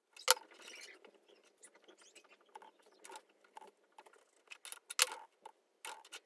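Small metal clicks, taps and scrapes of a steel tool holder being handled and fitted onto a Multifix quick-change tool post, with sharper clicks about a third of a second in and near five seconds.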